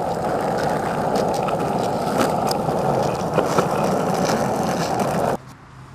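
Skateboard wheels rolling over rough asphalt: a steady rolling noise with scattered small clicks and knocks, which cuts off abruptly near the end.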